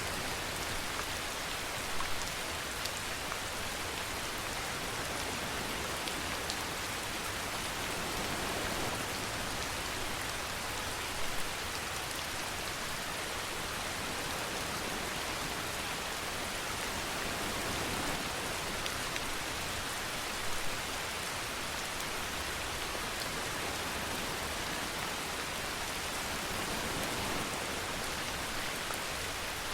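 Steady rainfall, an even hiss of drops on surfaces, with a few brief louder close drops now and then.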